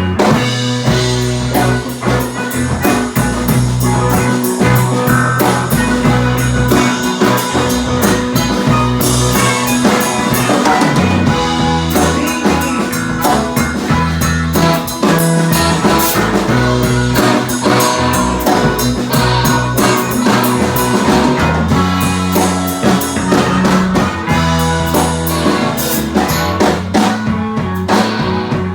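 Blues-rock band playing an instrumental passage: drum kit keeping a steady beat, a bass line stepping between notes, and guitar, with no singing.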